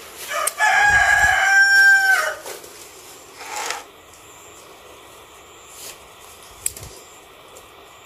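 A rooster crowing once, one long call held for about two seconds that drops off at the end. A single sharp click follows later.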